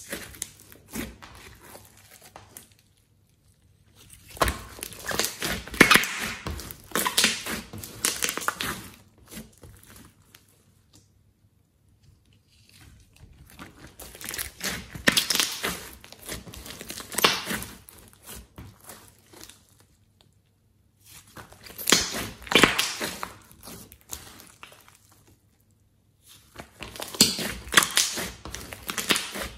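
Hands squishing and kneading a large lump of glossy slime mixed with clay, giving many small sticky clicks and pops as air pockets in it are squeezed. It comes in four bouts with short pauses between.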